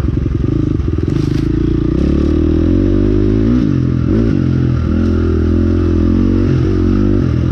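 Engine of a ridden vehicle running under way, its pitch rising and falling a few times as the throttle changes about two to four seconds in, then holding steady.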